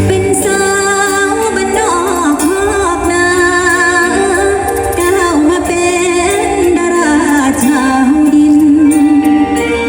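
Live band music with a female voice singing an ornamented, wavering melody over a steady accompaniment.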